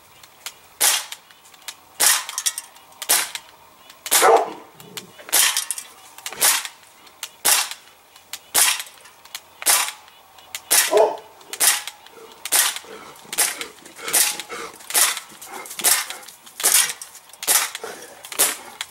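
Crosman C11 CO2 semi-automatic BB pistol firing about twenty shots at a steady pace of roughly one a second, each sharp pop quickly followed by the BB striking aluminium pop cans. These are shots 100 to 120 on a single CO2 cartridge.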